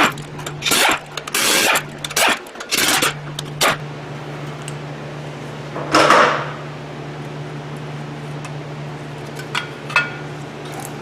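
Hand work on metal car parts: a string of short scraping and clunking sounds in the first few seconds, a longer scrape about halfway through, and a few sharp metallic clicks near the end, over a steady low hum.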